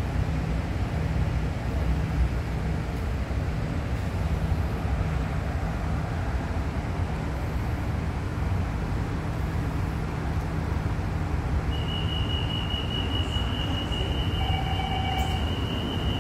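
Kawasaki-CRRC Sifang T251 MRT train standing at an underground platform with its doors open, giving a steady low hum and rumble. About twelve seconds in, a steady high-pitched warning tone starts and holds, with a short lower beep joining about two seconds later: the door-closing warning before departure.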